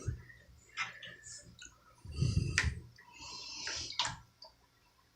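Shallow bathwater sloshing and splashing around a kitten in a bath: a few short splashes, the biggest about two seconds in and another near four seconds, with quiet gaps between.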